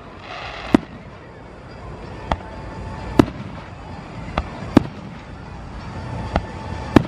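Aerial firework shells bursting: a run of sharp bangs, roughly one a second and irregularly spaced, some faint and some loud, with the loudest near the end.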